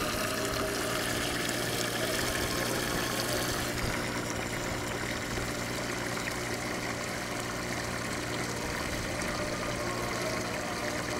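Transfer pump running steadily, drawing water from a pond, with the water pouring out of its pipe into a stock water tank. The pump gives a steady low hum under the rush of the water, and the high splashing hiss eases off a little about four seconds in.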